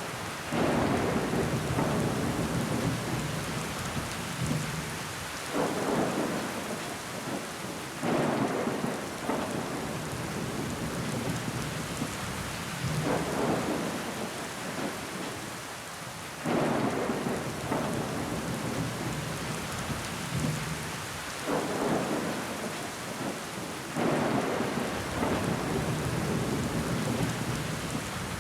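Steady rain pattering on window glass, with louder swells of heavier rain every few seconds.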